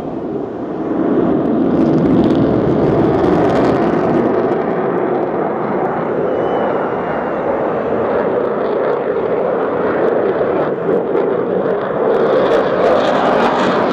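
Eurofighter Typhoon's twin jet engines heard in flight during its display: a steady, loud rushing rumble that grows louder about a second in and swells again near the end as the jet comes round.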